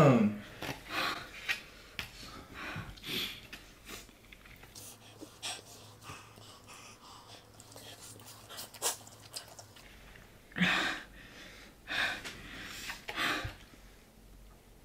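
Short, hissing breaths sucked in and blown out through the mouth, a few in the first seconds and three louder ones near the end: a person panting to cool a mouth burning from super-spicy fire noodles.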